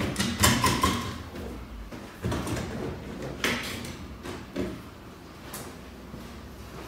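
Thule Motion XT Alpine plastic roof box being pushed and slid by hand along the roof bars: scraping with a cluster of knocks in the first second, then a few more separate bumps and scrapes.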